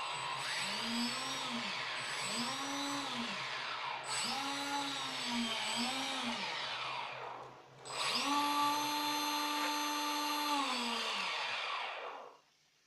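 Small electric motor of an RC plane spinning its propeller, with a whine that is throttled up and back down four times in quick succession. It is then held at a steady speed for about four seconds and spins down to a stop near the end.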